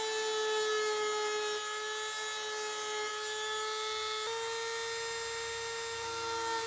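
Dremel rotary tool running as a steady high whine, grinding a small groove along a crack to prepare it for adhesive and epoxy filler. Its pitch steps up slightly a little over four seconds in.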